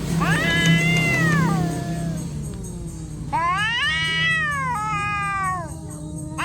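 Female cat in heat yowling: three long drawn-out calls, each rising and then falling in pitch, the mating call of a queen in season.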